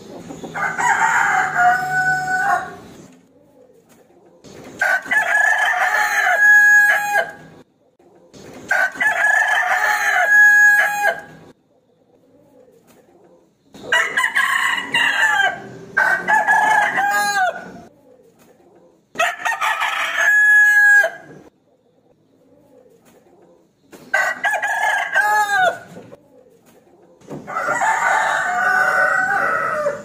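Rooster crowing over and over, about eight full cock-a-doodle-doo crows of two to three seconds each, separated by short pauses; two of them come back to back in the middle.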